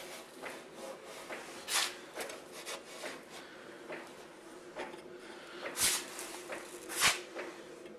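Handling noise on a steel Wheel Horse mowing deck: a hand rubbing and brushing over the metal, with a few sharp knocks or clicks, the loudest about six and seven seconds in, over a faint steady hum.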